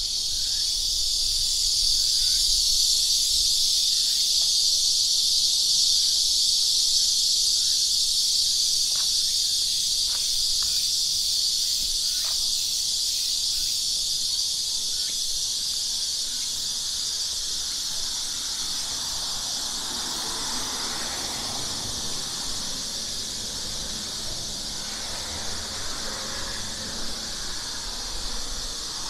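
Loud chorus of cicadas, a steady high-pitched buzz that eases a little in the second half.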